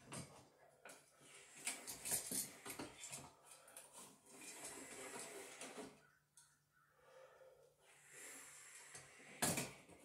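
Screwdriver working at light switches in a wall switch box: irregular scraping and small metal clicks, busiest in the first half, with one sharp click near the end.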